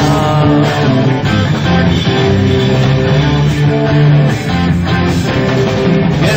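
Background music: an instrumental passage of a rock song, with guitar and bass.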